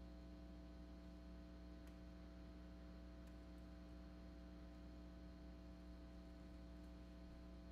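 Near silence after the music has stopped, with a faint steady electrical hum.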